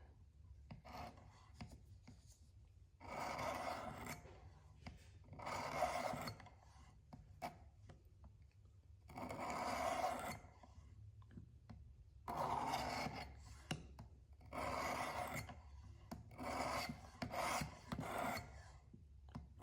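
Diamond stone of a Work Sharp Precision sharpener drawn along the single-bevel steel edge of a broadhead in one-direction downstrokes, set at about 30 degrees: a dry rasping scrape, about eight strokes with short pauses between, grinding the bevel bright.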